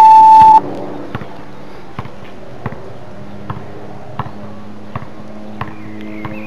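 Workout interval timer: a long electronic beep of about half a second marks the end of a 20-second work interval. A soft ticking follows, about every three-quarters of a second, counting down the rest.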